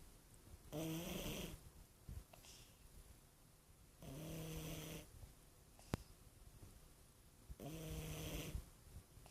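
Domestic shorthair cat snoring in its sleep: three snores about three and a half seconds apart, each about a second long. A single sharp click comes about six seconds in.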